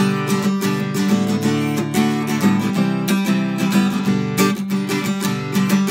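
Acoustic guitar strummed in a steady rhythm, an instrumental passage between sung lines of the song.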